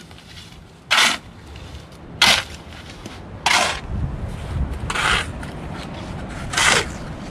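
Five short scraping strokes, about one every second and a half, typical of a mason's trowel working wet cement on a grave slab. A low rumble runs under them from about halfway.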